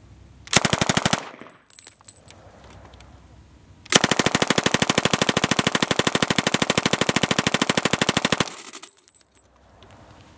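1921 Colt-made Thompson submachine gun in .45 ACP firing full-auto from a 100-round drum. First a short burst of about half a second, then after a pause of nearly three seconds, one long rapid burst of about four and a half seconds that cuts off suddenly.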